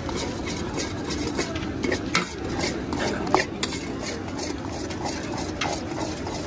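A long stirrer working peanuts through thick melted jaggery in a heavy black iron wok, in quick repeated scraping strokes against the pan. There are a couple of sharper clacks about two and three seconds in.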